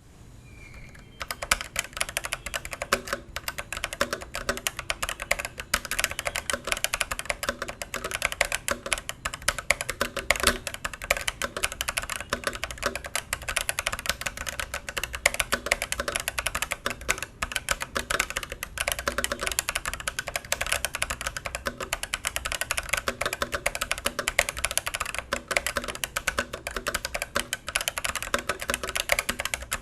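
Fast, continuous typing on an Ajazz AKC087 tenkeyless mechanical keyboard with AS 101 Yellow switches: a dense run of key clicks, starting about a second in.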